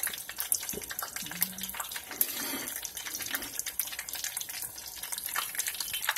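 Battered shrimp deep-frying in hot oil: a steady sizzle with many sharp crackles and pops.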